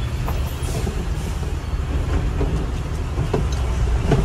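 Tata heavy truck's diesel engine running steadily with a low drone while driving, with a few light knocks and rattles.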